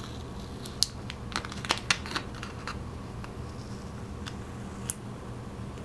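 Clear plastic transfer film being peeled slowly off a vinyl phone skin, giving scattered faint crackles and clicks, most of them in the first couple of seconds and a few more later, over a steady low hum.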